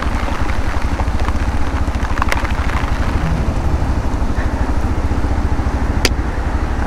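Motorcycle engine running at a low, steady idle-like pace, a fast even low rumble, under the hiss of heavy rain. There is a short sharp click a little after two seconds and a louder one about six seconds in.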